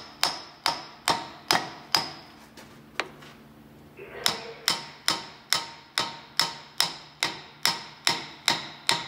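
Hammer tapping a new brake pad into a Bendix air disc brake caliper: steady ringing metal-on-metal taps about two a second. The taps turn fainter and sparser for a couple of seconds in the middle, then pick up again.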